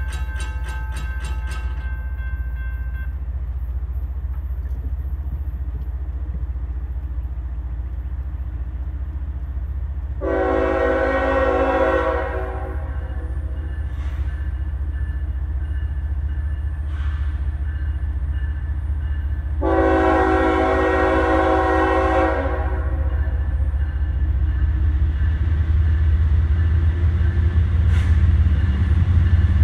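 A railroad crossing bell rings rapidly and falls silent about two seconds in, as the gate arms settle down. Then a train horn sounds two long blasts over a low rumble that grows louder as the train approaches.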